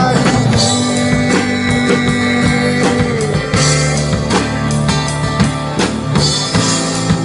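Rock band playing live, an instrumental passage without vocals: guitar over bass and drum kit.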